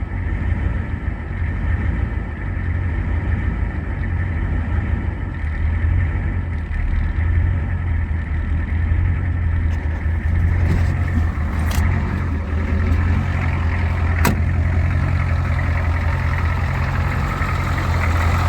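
Ford 6.9 IDI V8 diesel idling steadily while it draws ATF from a refilled fuel filter into the injection pump, with two sharp clicks in the second half.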